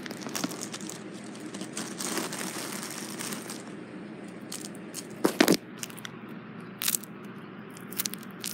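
Clear plastic bag crinkling and crackling as it is handled to take a toy out, with a louder clatter of handling about five seconds in.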